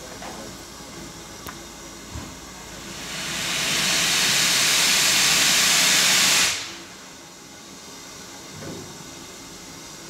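BR Standard Class 2 steam locomotive 78022 letting off steam: a loud hiss that builds over about a second, holds for a few seconds and cuts off sharply.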